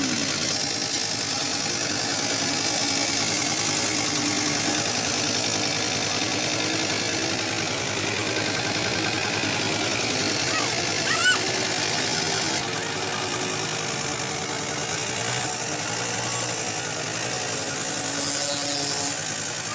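Steady engine noise from a vehicle running nearby, with a short sharp sound about eleven seconds in.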